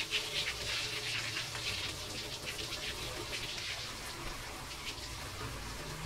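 Water spraying from a homemade PVC-pipe ring shower head, its many fine jets splashing onto a plastic basin and a wall as a steady hiss. It comes in suddenly at the start.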